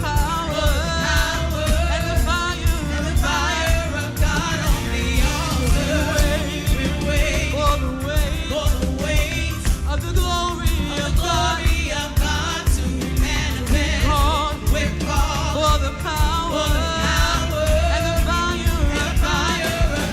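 Live gospel worship music: a vibrato-laden lead singing voice over a full band with heavy bass and a steady drum beat.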